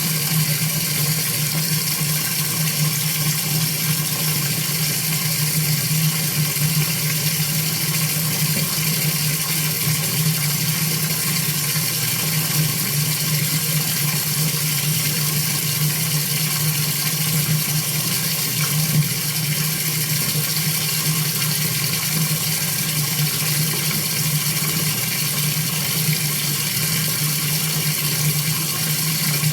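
Heavy stream of shower water pouring and splashing steadily at full flow.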